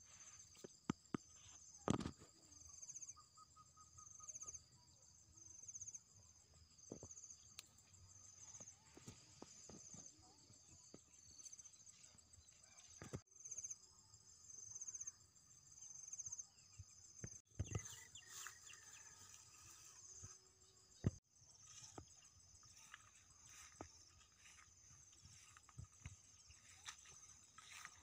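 Faint outdoor field ambience: a steady high-pitched insect chorus pulsing at an even rate, with scattered soft clicks and rustles of grass and plant stems being handled.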